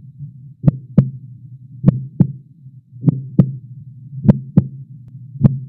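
Heartbeat sound effect: double thumps, lub-dub, about one pair every 1.2 seconds over a steady low hum.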